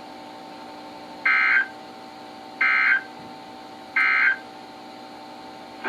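NOAA Weather Radio SAME end-of-message code: three short bursts of digital data tones, about a second and a half apart, over a faint steady hum from the receiver. The three bursts mark the end of the tornado warning alert.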